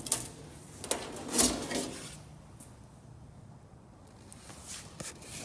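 Handling noise: sharp clicks and knocks, then a brief scraping rustle about a second and a half in, the loudest part, and a few faint ticks near the end.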